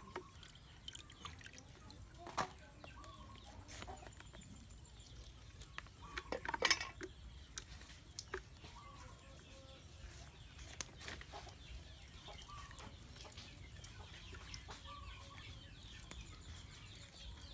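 Scattered knocks of a knife on a wooden chopping board and water dripping and sloshing in a bucket as snakes are cleaned, with the loudest run of knocks about six to seven seconds in. Hens cluck faintly in the background.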